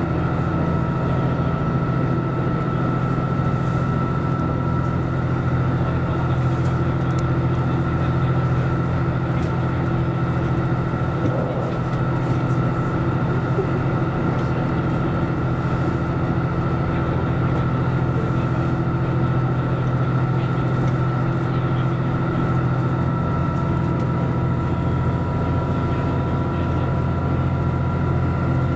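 Series 85 diesel railcar running steadily at speed: a constant low engine drone with a steady whine above it, mixed with wheel-on-rail running noise, heard from the front of the car.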